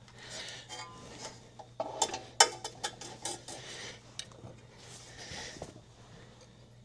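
Ratchet strap being forced against a compressed coil spring: a run of sharp metal clicks and clanks in the middle, the loudest about two and a half seconds in, as the ratchet is pushed for a last half click of spring compression.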